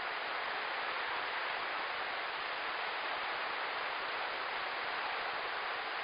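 Steady hiss of small waves washing onto a sandy shore, even throughout with no single breaking wave standing out.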